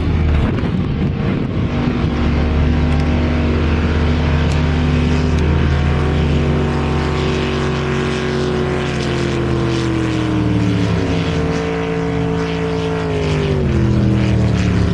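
Racing motorboats running flat out across the harbour, their engines loud and steady at first, then falling gradually in pitch through the second half as they pass and pull away.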